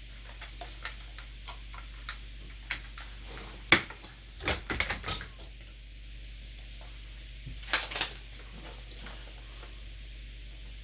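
A string of knocks and clicks from gaming-chair parts being handled and set down during assembly. The sharpest knock comes a little under four seconds in, with a cluster of knocks just after it and two more near eight seconds.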